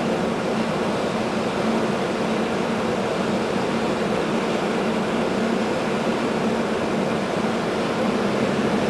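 Steady running noise inside a PKP EN57 electric multiple unit in motion: wheels rolling on the rails under an even low hum.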